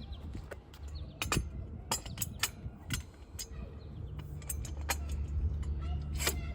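Harley-Davidson Low Rider ST's Milwaukee-Eight 117 V-twin idling, warming up after a fresh oil change so the oil levels can be checked. The low hum grows stronger about four seconds in, with irregular sharp clicks over it.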